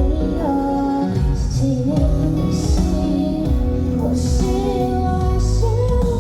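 Live pop ballad: a singer's voice carries the melody over band accompaniment with guitar and a steady low beat.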